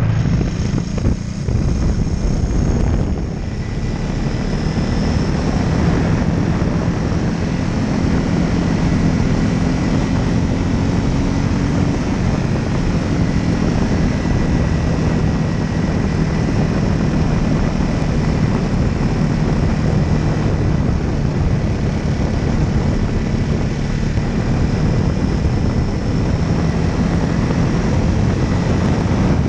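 Small propeller aircraft engine running steadily in flight, its propeller drone mixed with a heavy rush of air noise.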